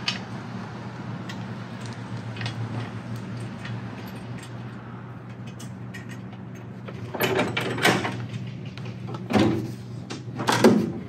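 Clunks and knocks of a Jeep Wrangler's hood being unlatched and lifted: several loud ones in the last few seconds, after a stretch of faint taps over a steady low hum.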